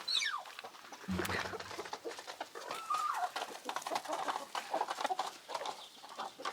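A flock of chickens clucking and calling while they feed, with a squawk falling in pitch at the start and many short calls after it.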